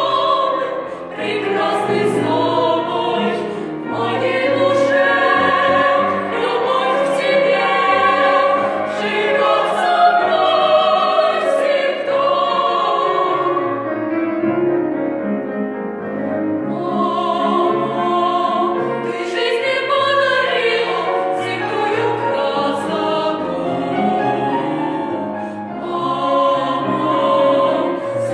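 Vocal ensemble singing a song in several voices, with piano accompaniment.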